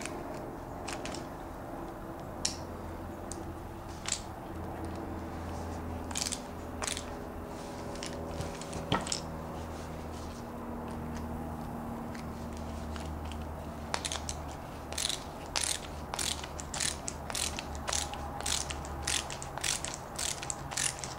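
Ratcheting screwdriver clicking as it backs a screw out of a Savage 110 rifle bolt: scattered single clicks at first, then quicker runs of clicks over the last seven seconds or so.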